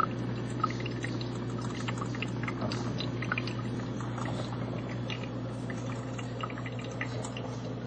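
Black and Decker Spacemaker drip coffee maker brewing: water bubbling and gurgling through the machine in many small scattered pops over a steady low hum.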